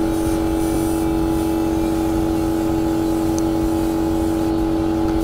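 Compressed-air spray gun hissing as black paint is sprayed onto a motorcycle frame, over the steady hum of the air compressor feeding it.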